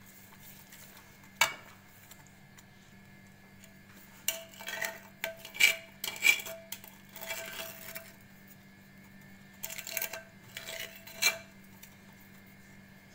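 Metal spoons clinking and scraping against a metal cooking pan as lumps of solid ghee are scooped in over the panjiri mixture. One sharp clink comes about a second and a half in, then two spells of clatter, one from about four seconds in and one near the end.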